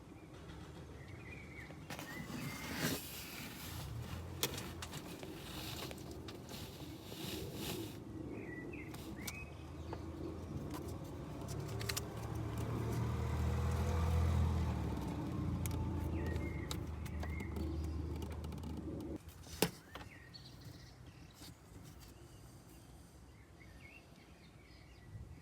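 A Volkswagen T4 van's engine or starter: a low drone swells for several seconds, then cuts off abruptly, with a sharp click just after. Birds chirp now and then.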